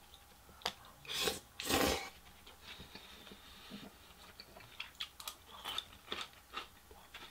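Close-up eating sounds: two loud slurps of black bean noodles (jajangmyeon) about a second in, then chewing with small scattered clicks of chopsticks picking at a bowl of pickled radish.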